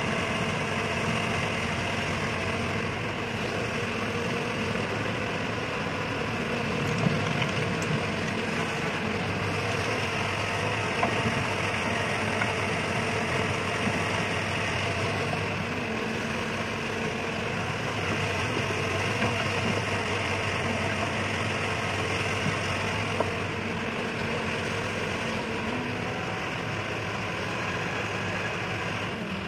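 Hyundai 140-class crawler excavator's diesel engine running steadily while it digs and swings, with a few brief knocks.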